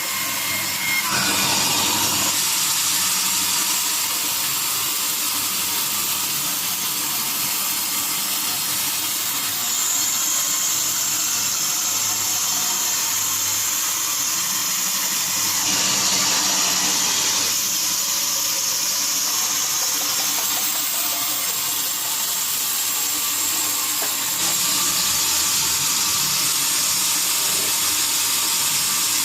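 Sawmill saw running steadily with a loud, hiss-like machine noise. A higher steady whine joins about ten seconds in and drops away about ten seconds later.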